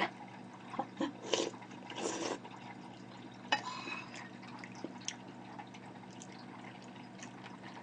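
Close-up eating sounds: sips of soup broth from a metal spoon in the first couple of seconds. A sharp click of the spoon against the ceramic plate comes about three and a half seconds in, then faint small clicks.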